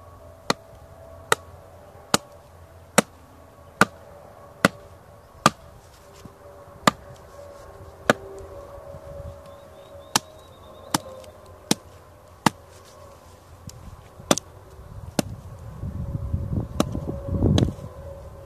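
Sharp wooden knocks, roughly one a second and more irregular later on, as a fixed-blade knife is driven into the end of a stick to split it open.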